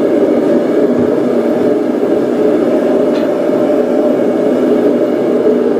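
Blacksmith's forge running with a steady, even roar, with no hammer blows.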